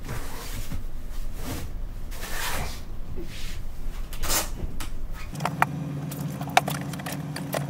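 Cabin sofa being pulled out into a bed: its seat and base slide and the cushions are shifted, with swishing, knocks and sharp clicks over a low steady hum.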